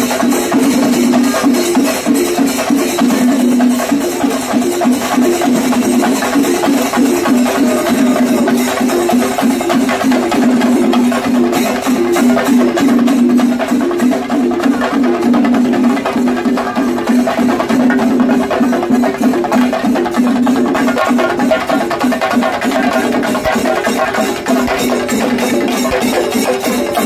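A percussion troupe drumming fast and without a break, dense sharp strokes packed closely together.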